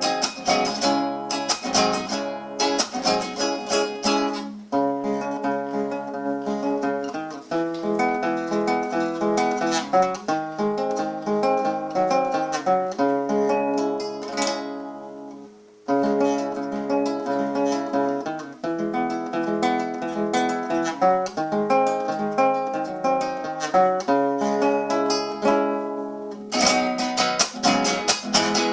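Acoustic guitar music: quick strummed chords at first, then a slower picked melody of held notes. It fades briefly about halfway through and returns, with strumming again near the end.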